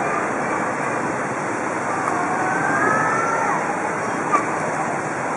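Harsh wind noise on the camera microphone over street traffic: cars and motorbikes driving through flood water, with faint engine tones rising and falling. A brief sharp click about four seconds in.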